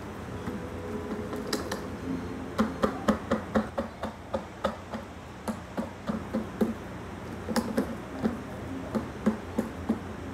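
Hard plastic knocks and taps of a vacuum cleaner's hose and parts being handled while it is switched off, in two quick spells of about four knocks a second, over a steady low hum.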